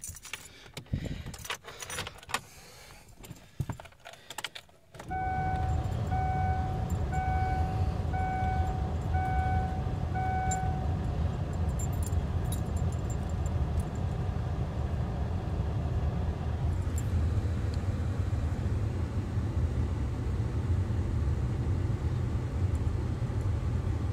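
Car keys jangling and clicking in the ignition of a 2003 Kia Spectra. About five seconds in, the ignition is switched on with the engine not yet running: a steady low rush starts and a dashboard warning chime beeps about eight times, evenly spaced.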